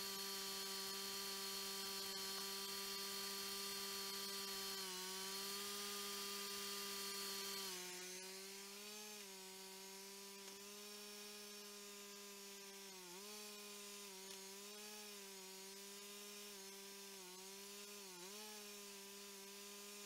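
Cook's 3238 hydraulic band sawmill running with the mill left on, a steady pitched hum. Its pitch dips briefly a few times as the hydraulic log controls are worked, and it drops a little in level about eight seconds in.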